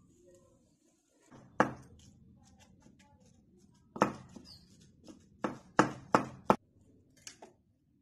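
Wooden pestle pounding ginger, garlic and green chillies in a heavy stone mortar: single dull thuds about a second and a half in and about four seconds in, then a quick run of four strikes and a lighter one or two near the end.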